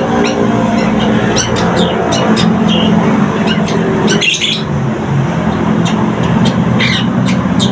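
Caged long-tailed shrike (cendet), a local bird just beginning to sing, chattering in quick, sharp high notes with one louder harsh burst a little past halfway. A steady low rumble runs underneath.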